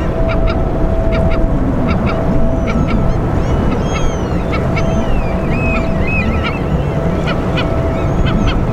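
Birds calling in a string of short, repeated calls, with higher whistling chirps mixed in through the middle. Beneath them runs a steady low rumble with a constant thin hum.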